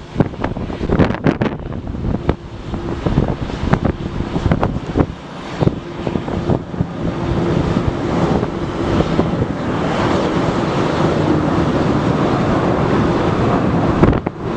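Wind buffeting the microphone in gusts, then a jet airliner's engines growing louder from about halfway through and running steadily loud near the end.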